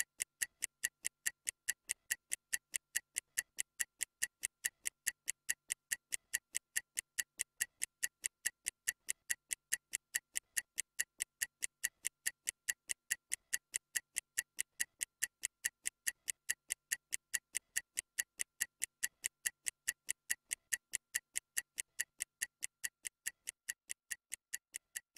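Stopwatch ticking sound effect, about three sharp, even ticks a second, marking a 30-second rest interval.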